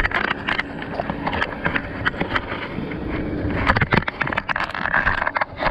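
A small 12-volt bilge pump in a kayak running with a steady hum as it pumps water out of the boat, amid irregular water splashes and wind on the microphone.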